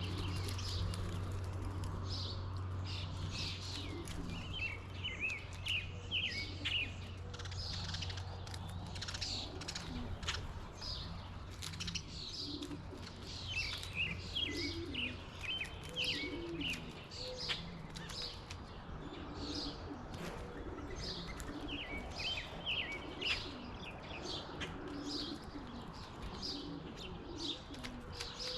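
Many small backyard birds chirping and twittering steadily around a feeder, calls overlapping throughout. A steady low hum sits under them for the first ten seconds or so, then fades.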